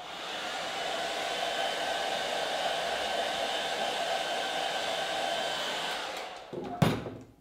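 Handheld hair dryer running steadily, blowing hot air onto a small steel pot of chocolate to warm it for tempering; it switches off about six seconds in, followed by a single loud knock.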